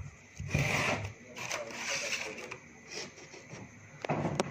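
Rustling and rubbing of objects being handled on a tabletop, in several short bursts, with a sharp click near the end.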